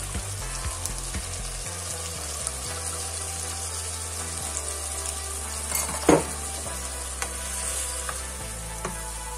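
Pork and onions sizzling and bubbling in a non-stick frying pan as they are deglazed with white wine, a steady hiss. A sharp knock about six seconds in, and a wooden spoon stirring in the pan near the end.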